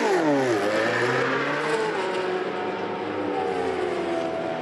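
Racing motorcycle engine dropping from a rev right at the start, then running at a steady, slowly rising note as the bike pulls out of its pit box and away down the pit lane.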